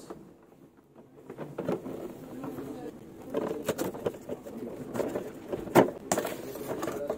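Cardboard toner-cartridge box being handled and opened by hand: irregular rustling, scraping and tapping of card, with one sharp knock a little before six seconds in.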